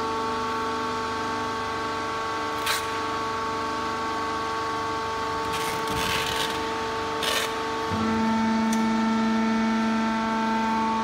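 Wood sawdust pallet hot press machine running with a steady hum of several tones. A stronger low hum comes in about eight seconds in and holds. Brief hissing bursts come near three seconds, around six seconds and again near seven seconds.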